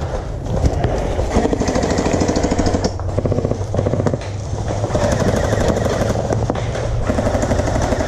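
Gel blasters firing full-auto in long bursts, a rapid mechanical rattle from their electric motors and gearboxes, with a couple of short pauses between bursts.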